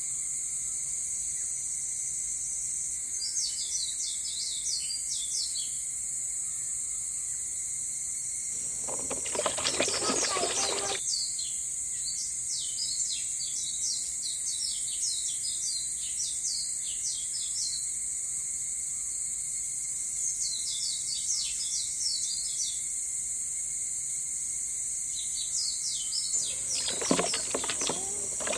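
Small birds chirping in quick bursts over a steady high-pitched hiss of outdoor ambience. A brief rushing noise comes twice, about a third of the way in and near the end.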